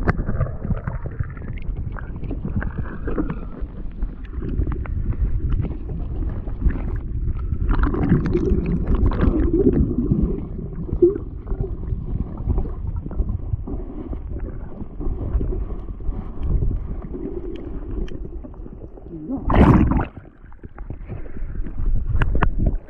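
Muffled low rumble and gurgle of shallow water heard with the microphone held underwater. Near the end comes one louder rushing splash as it breaks the surface.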